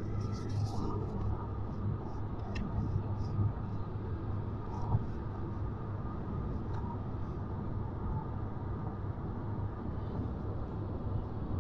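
Steady road and tyre noise of a car cruising at highway speed, with a low hum underneath and a few faint clicks.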